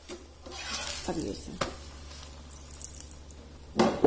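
Metal spatula scraping under an oiled paratha in a nonstick frying pan and turning it over, with the light sizzle of the bread frying. A single louder knock comes near the end.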